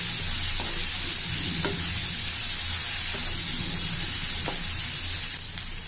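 Onion and capsicum pieces sizzling in hot oil in a kadai while a perforated metal spatula stirs them, with a few light scrapes of the spatula. The sizzle eases off near the end.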